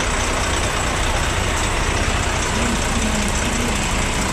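Heavy diesel lorry engine idling steadily, heard up close beside the cab of a 480 hp tractor unit.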